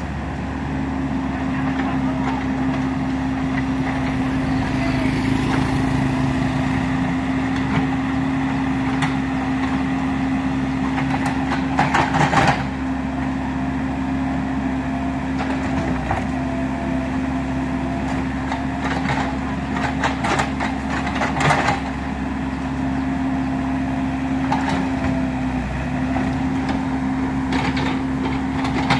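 Komatsu PC35 mini excavator's diesel engine running steadily under working load as it digs and moves soil. A few short clattering bursts come from the bucket working the soil, around twelve seconds in, again around twenty seconds, and near the end.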